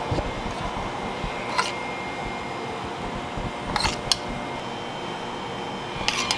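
Metal spoon clinking a few times against a stainless steel bowl as strawberries are scooped out, over a steady background hum.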